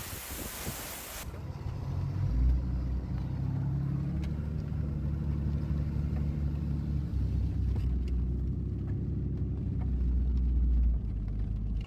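A brief hiss, then about a second in a low, steady rumble starts, with a hum-like pitch in it, and it stops shortly before the end.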